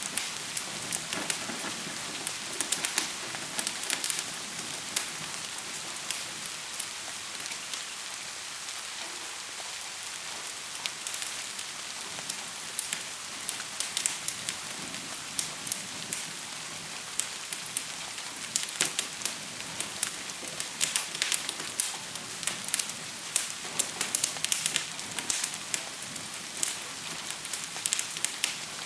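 Wood fire crackling with irregular sharp pops over a steady hiss of gentle rain.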